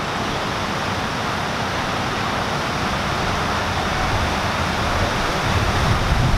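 Water rushing steadily at a canal lock, a continuous roar like a weir, with a deeper rumble building near the end.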